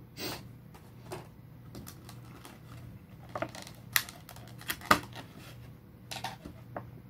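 Scattered clicks, taps and rustles of a trading-card box's packaging being handled as a promo card is worked free of its holder, sharpest around four to five seconds in. A faint steady low hum runs underneath.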